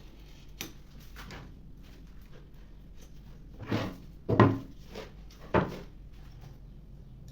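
A few short knocks and thuds on wooden furniture parts. Faint ones come early, then three louder ones follow in the second half, the loudest about halfway through.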